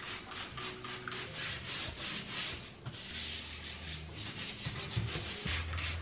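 Plastic trigger spray bottle squirting cleaner in quick, repeated sprays of about three to four a second, each a short hiss.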